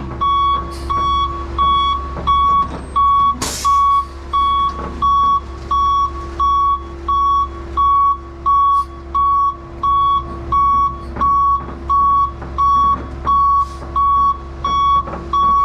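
Backup alarm beeping steadily, a little more than once a second, over a heavy engine running at a steady speed. A single metallic clank comes about three and a half seconds in.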